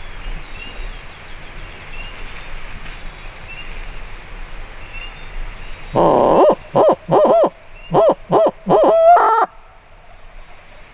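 Barred owl hooting imitated very close by, most likely on a hunter's owl locator call used to make a gobbler shock gobble: a loud run of about seven hoots, the last one longer and ending higher. Before it, only faint small bird chirps.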